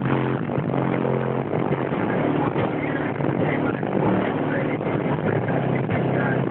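Car audio system playing music loud, with heavy bass notes that change at a steady beat, overdriving the microphone.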